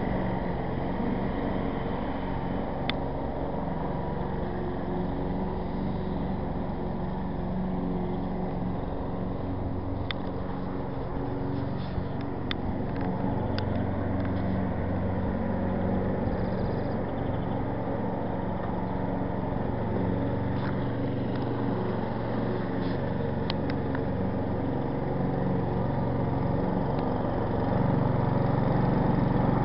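Lawn mower engine running steadily, with a few brief sharp clicks along the way; it grows louder near the end.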